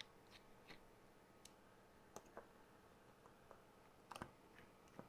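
Faint, scattered small clicks and ticks of a tiny Phillips screwdriver working the screws out of a plastic model train chassis, with a short cluster of clicks a little after four seconds.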